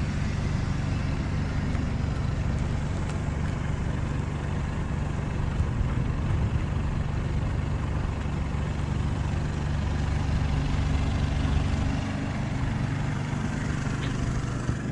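A vehicle engine idling steadily, a low even hum that holds the same pitch throughout.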